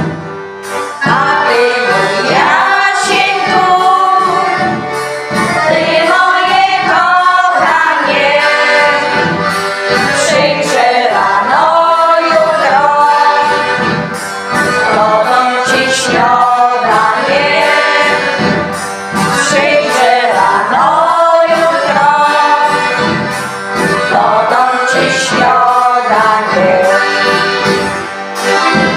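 A Polish folk song: a group of singers singing together to a Hohner accordion, with a drum keeping a steady beat.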